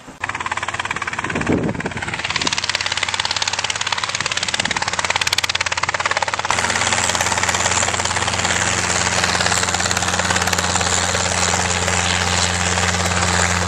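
Small Robinson helicopter running close by, its two-bladed rotor turning: a loud, dense, steady noise. From about six seconds in, a steady low hum stands out beneath it.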